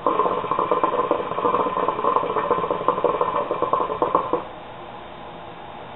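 Hookah water bubbling as a long draw pulls smoke through the base: a dense stream of bubbles for about four seconds that stops abruptly when the draw ends.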